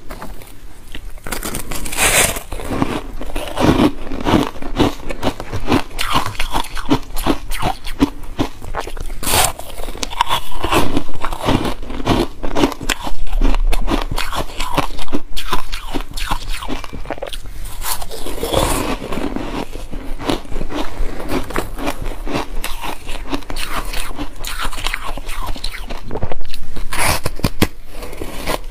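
Chunks of coloured ice being bitten and chewed close to lapel microphones: a dense, continuous run of crunches and crackles as the ice breaks between the teeth.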